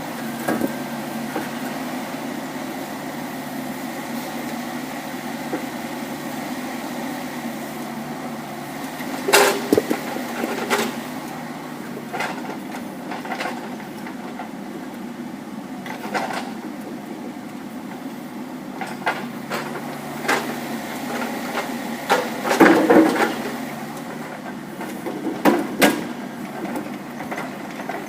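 Kubota mini excavator's diesel engine running steadily, with irregular metallic clanks and knocks as the attachment on its arm works, loudest about 9 seconds in and around 22 to 23 seconds in.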